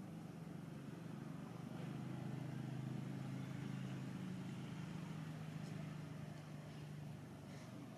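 Low, steady engine hum of a motor vehicle running, growing a little louder after about two seconds and easing off near the end.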